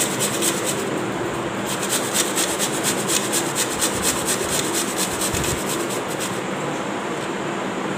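Small piece of fresh ginger grated on a stainless steel box grater: quick, even rasping strokes, with a short pause about a second in, stopping about six seconds in.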